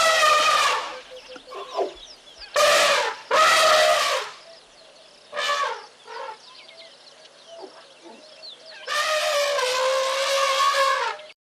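A series of loud, pitched animal calls: several short calls in the first half, then one long held call near the end.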